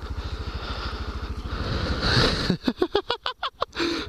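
Honda Grom's small single-cylinder four-stroke engine running at low, steady revs on a trail ride. About two and a half seconds in, it breaks for about a second into a fast, choppy, wavering pulse before settling back.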